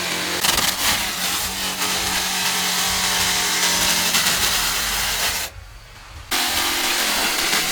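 An engine running steadily, with a few sharp knocks about a second in. It drops out suddenly for under a second past the middle, then resumes.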